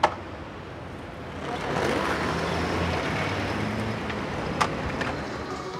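Street traffic: a motor vehicle passes with an engine drone and road noise that swells about one and a half seconds in, then slowly eases off. A sharp skateboard clack sounds at the start and another near the end, the tail of the board hitting the pavement during a flip trick.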